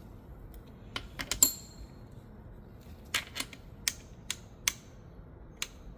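Irregular light metallic clicks and clinks of manual-transmission parts being handled, about ten in all. One, about a second and a half in, rings briefly.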